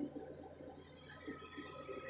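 Faint steady low hum of the rotary drilling rig's engine idling, under quiet outdoor background noise.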